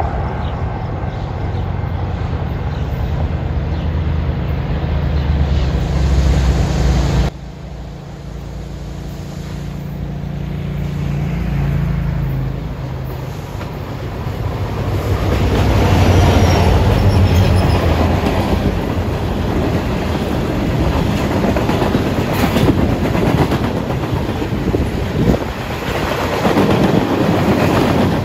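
Diesel locomotives of a Canadian Pacific freight train running as they approach and pass, their engine note dropping away suddenly about seven seconds in. From about halfway, the freight cars rolling past with a steady rumble and wheels clicking over the rail joints.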